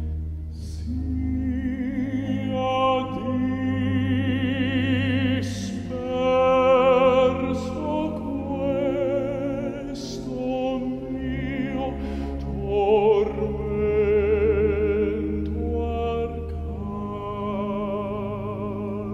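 Operatic tenor singing an Italian art song with a wide vibrato in long phrases, over low sustained notes from a chamber ensemble of harp, pipe organ, violin and cello.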